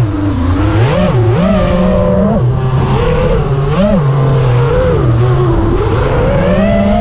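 FPV quadcopter's brushless motors and propellers whining, heard from the onboard camera. The pitch jumps up and falls back several times with punches of throttle, then climbs to a longer high note near the end.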